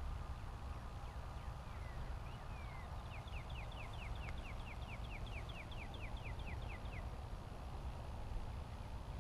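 A songbird singing a rapid, even trill of about twenty short down-slurred notes, about five a second, lasting some four seconds, with a few faint chirps just before it. Under it runs a steady low rumble, wind on the microphone.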